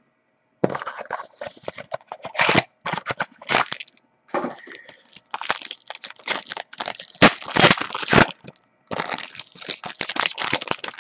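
A trading-card pack wrapper being crinkled and torn open by hand, with irregular crackling and tearing in clusters separated by short pauses.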